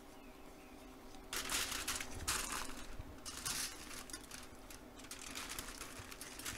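Aluminium foil being folded and rolled by hand into a packet, crinkling in a series of bursts that start about a second in.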